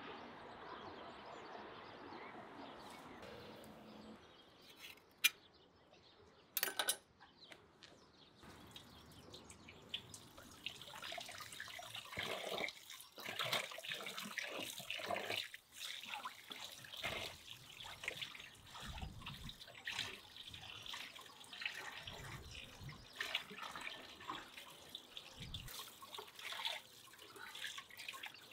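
Tap water running into a basin and splashing as raw oxtails are rubbed and rinsed by hand, starting about a third of the way in. Before the water there are a few sharp clicks about five to seven seconds in.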